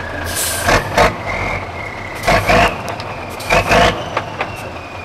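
Tatra 8x8 trial truck's diesel engine working hard as the truck climbs out of a pit, black smoke pouring from the exhaust, with a thin high whistle drifting slowly in pitch over a steady low engine hum. Three pairs of short, loud bursts of noise break through, each pair about a second and a half after the last.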